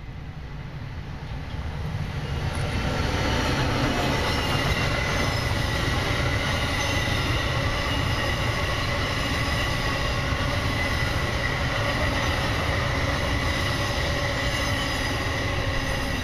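Electric passenger train passing on the Northeast Corridor, a steady rumble of wheels on rail with a steady high-pitched whine over it. It grows louder over the first few seconds as the train comes level, then holds steady while the cars go by.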